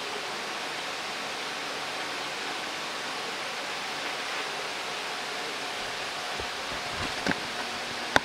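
Steady, even hiss of kitchen background noise with a faint steady hum, and a light knock about seven seconds in.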